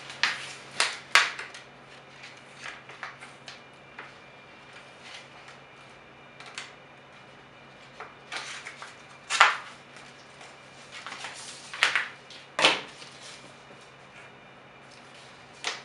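Scissors snipping through a vinyl decal sheet, with crinkling as the sheet is handled, in short scattered bursts; the sharpest come about nine and twelve to thirteen seconds in. A faint steady low hum runs underneath.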